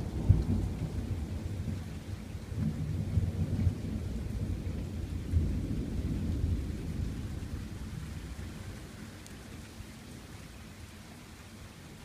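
Thunder rumbling over steady rain. The rumble swells several times in the first half and dies away over the last few seconds.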